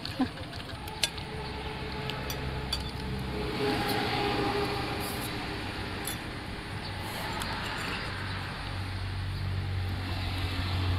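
Metal spoons and forks clinking a few times against ceramic soup bowls, over the steady low drone of a motor vehicle engine that swells about four seconds in and holds a steady hum near the end.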